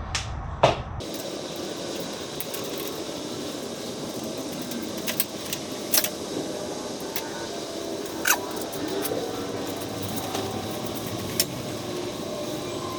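Steady hiss with scattered sharp clicks and clinks, like small metal parts and tools being handled during wiring work.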